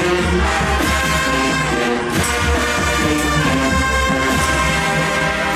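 Marching band playing: a full brass section carrying a loud melody over bass drums and percussion.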